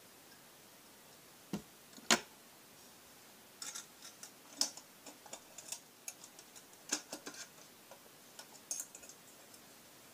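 Clicks and light taps from a small metal-and-glass candle lantern being handled: two sharper clicks about two seconds in, then a run of lighter, irregular clicks and taps.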